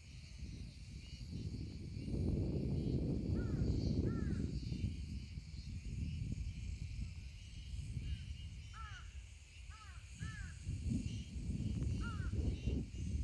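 A bird calling repeatedly in short arching calls, often two or three in quick succession. Under the calls runs an irregular low rumble, loudest from about two to five seconds in, and a steady high hiss.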